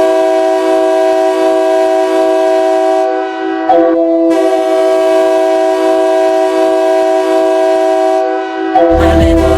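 Anchorage Wolverines' hockey goal horn sounding loud and long, a chord of several steady tones with a brief break about four seconds in. The goal song's music comes in under it near the end.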